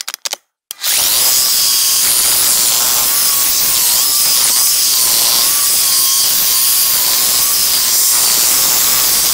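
Electric demolition hammer running continuously, its chisel breaking up buried concrete around a fence post footing, a steady hammering with a wavering motor whine over it. It starts up under a second in, after a few short knocks.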